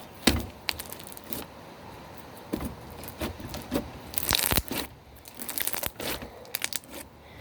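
Homemade slime being squeezed and stretched by hand, making irregular crackles and pops. The loudest pops come about a third of a second in and again around four and a half seconds.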